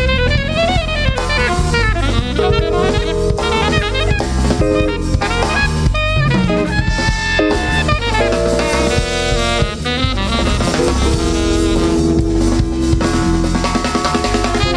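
Live jazz band playing: saxophone melody lines over a busy drum kit and electric bass.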